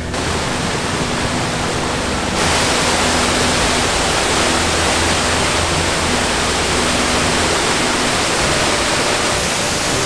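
Waterfall and stream rushing over rocks as a steady, dense wash of water noise that grows louder and brighter about two and a half seconds in.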